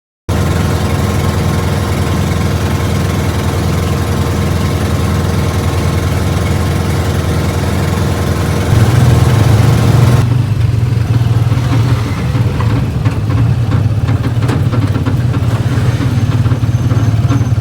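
A motor engine running loud and close, with a steady low hum. About nine seconds in the low hum grows stronger, and a second later the high hiss drops away.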